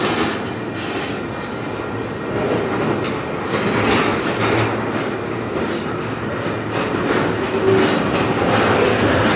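Double-stack container well cars of a Union Pacific freight train rolling past close by: a steady, loud rumble of steel wheels on rail, with repeated clicks as the trucks cross rail joints.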